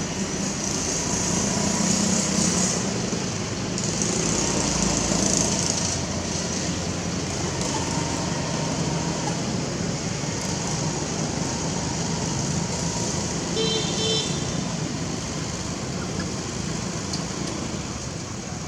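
Steady outdoor road-traffic noise, with a high hiss that swells in the first few seconds and a brief high-pitched call about fourteen seconds in.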